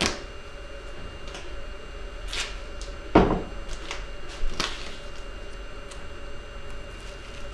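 Duct tape being pulled off the roll and torn off by hand: a few short rips, the loudest about three seconds in.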